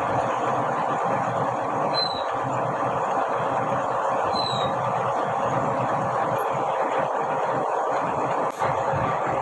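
Metal lathe running, spinning an axle shaft while something held by hand is pressed against the turning shaft, a steady rough rubbing noise.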